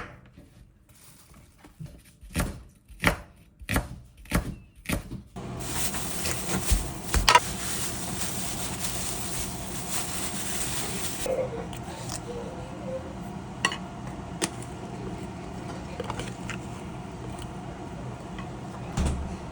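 A knife chopping on a cutting board, about five strokes a little over half a second apart, then water running from a tap for about six seconds and shut off abruptly, followed by light clatter of dishes and utensils.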